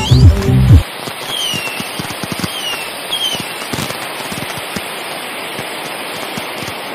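Fireworks crackling across the water in a dense, steady patter of small pops, with a few short falling whistles.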